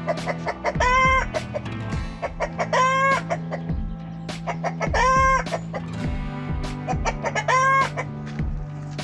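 Background music: held low chords with a steady ticking beat, and a short bending high note that rises and falls about every two seconds.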